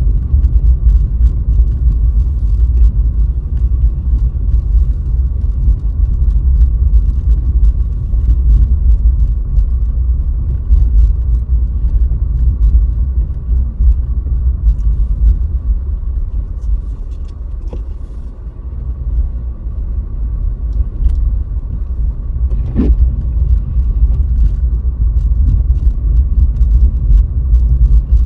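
Car driving through heavy snow, recorded by a dashcam: a steady low rumble of tyres and engine that eases off briefly past the middle. A short pitched blip sounds near the end.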